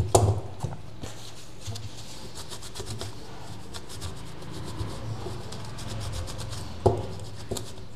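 Handling noise at a repair bench: light rubbing and scraping with scattered small ticks over a low steady hum, and a sharper click near the end.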